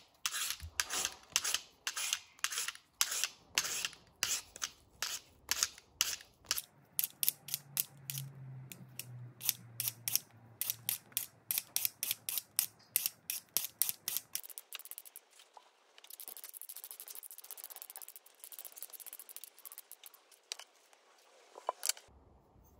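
Handheld vegetable peeler scraping the skin off a russet potato in quick repeated strokes, about two to three a second, fainter and less distinct in the second half.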